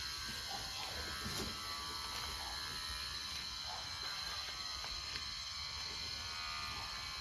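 Electric pet hair clipper running steadily while shaving a dog's coat, a constant buzz with a fixed high tone.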